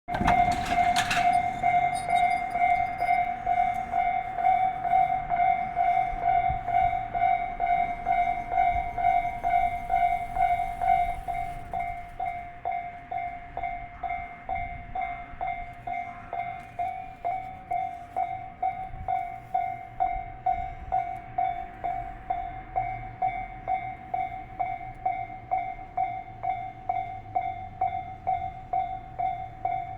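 Japanese level crossing's electronic warning bell clanging steadily at about two strikes a second. For the first twelve seconds or so a locomotive-hauled train rushes through the crossing at speed, after which the bell rings on alone, a little quieter.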